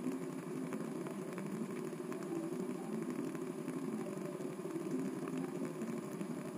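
Stand mixer motor running steadily, its flat beater creaming butter and sugar in a stainless steel bowl.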